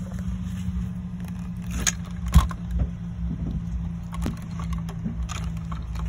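A few clicks and knocks, the loudest about two seconds in, as a car audio capacitor with metal terminal posts is handled, over a steady low hum.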